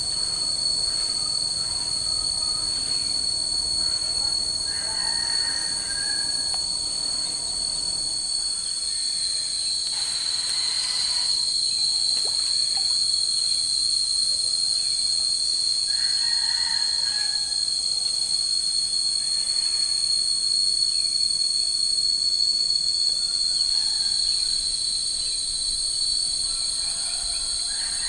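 Steady, high-pitched drone of an insect chorus in tropical swamp forest, with a few short chirps rising over it about five seconds in, around sixteen seconds and near the end.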